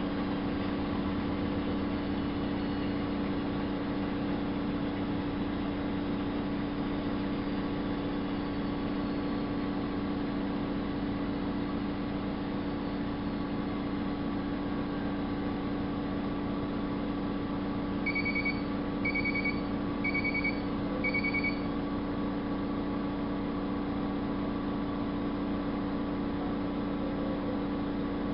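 Miele Novo Super W933 washing machine running with a steady motor hum. About three-quarters of the way through, four short high beeps sound in a row.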